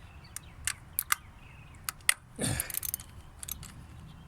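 Irregular light metallic clicks and taps of a small wrench working the ignition coil bolts on a Toyota Camry Hybrid engine, with a brief scraping rustle about two and a half seconds in.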